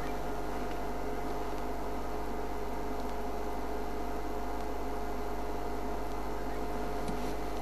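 Steady hiss with a constant electrical hum of two fixed tones, and a couple of faint ticks near the end.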